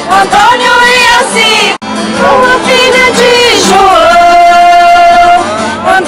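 A festa junina song: a singer holds long notes over the accompaniment, played loud. The sound cuts out for an instant just under two seconds in.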